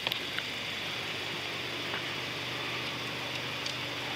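Steady hiss of background noise with a faint low hum, and a few faint clicks about the start.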